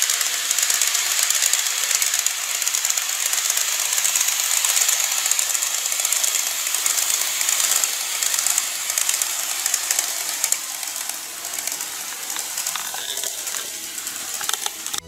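N-gauge model train running along plastic viaduct track: a steady, high-pitched rattling hiss of wheels and motor with fine rapid clicks, easing off somewhat in the last few seconds as the train passes by.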